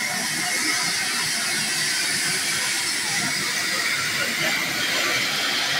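Steam hissing steadily from a standing GWR Hall-class steam locomotive.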